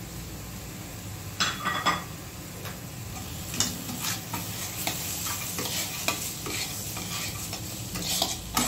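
Food sizzling in a hot pan while a spatula stirs and scrapes it: irregular clicks and scrapes over a steady sizzle.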